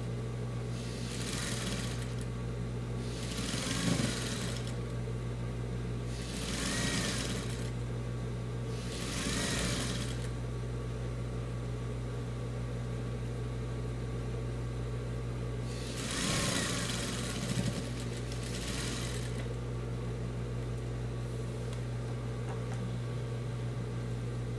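Electric sewing machine stitching through denim strips in short runs of one to two seconds, about six in all, with a longer pause midway, over a steady low hum.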